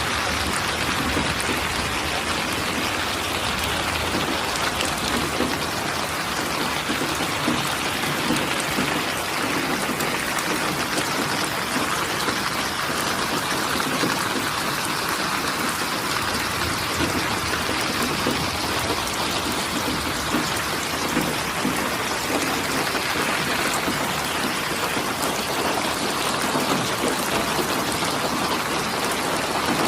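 Steady rain falling, an even hiss of countless small drops.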